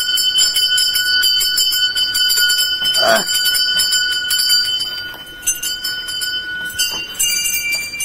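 Metal bells ringing, struck over and over so that their tones keep ringing on; a different set of tones comes in about seven seconds in.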